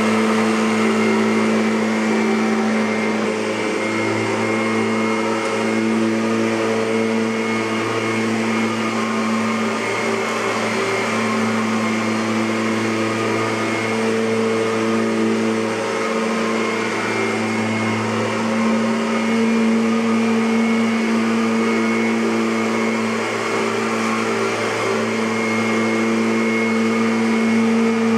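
Kirby Avalir (G10D) upright vacuum cleaner running steadily: a constant motor tone with a low hum under a broad rushing of air.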